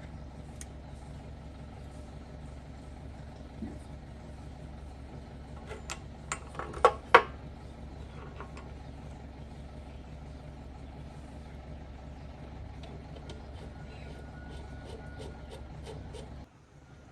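An engine running steadily at idle, with a few sharp metallic clicks about six to seven seconds in and lighter ticks later on; the sound drops away abruptly just before the end.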